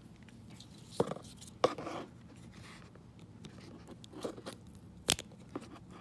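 Plastic clicks and scraping from a Ford body control module wiring connector worked apart by hand while its terminal-block tab is released: sharp clicks about a second in and again shortly after, a louder one about five seconds in, with faint scraping between.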